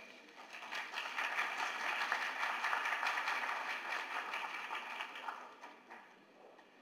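Audience applauding; the clapping swells about a second in and dies away near the end.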